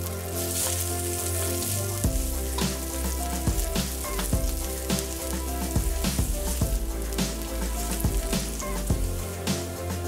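Chopped garlic sizzling in hot oil in a wok, with a wooden spatula stirring and tapping against the pan in quick irregular ticks from about two seconds in.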